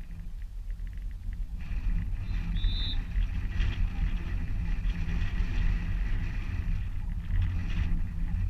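Outdoor game ambience: a heavy low rumble of wind on the microphone, with a broad rise of hissing crowd and field noise about two seconds in. A short, high whistle blast sounds about a second later.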